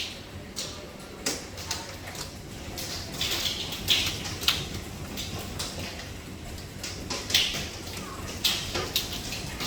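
Hailstones striking hard surfaces: irregular sharp clicks and knocks, several a second, over a steady hiss of falling hail.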